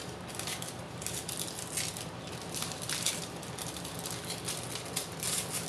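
Paper envelopes rustling and crinkling in short, uneven scratches as they are opened by hand.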